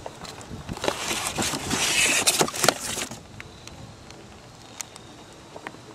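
Metal microinverter being pulled out of a slotted cardboard shipping box, cardboard scraping and rustling for about two seconds, then a few light handling clicks.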